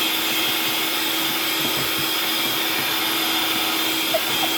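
Electric mixer running steadily in a bowl, beating the no-bake cheesecake filling until it thickens, with a constant motor whine.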